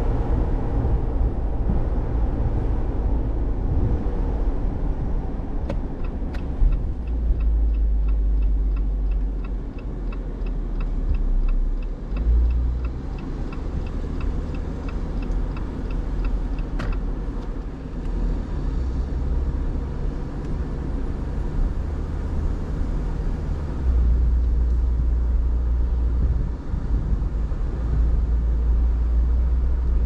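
Car driving, with a steady low rumble of road and engine noise. For about ten seconds in the middle, a run of short high ticks repeats about two or three times a second.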